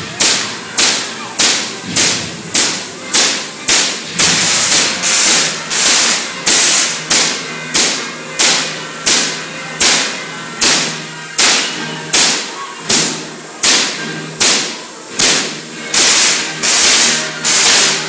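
Giant Van de Graaff generator throwing sparks: sharp electric cracks about twice a second, each ringing off in the hall, with a steady low hum underneath.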